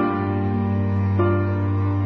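Slow, gentle background music with sustained keyboard notes over a steady low bass, a new chord coming in about a second in.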